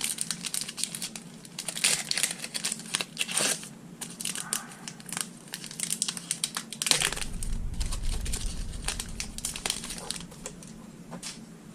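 Foil wrapper of a Pokémon trading card booster pack being crinkled and torn open, in clusters of sharp crackles. A low rumble comes in about seven seconds in and fades after a few seconds.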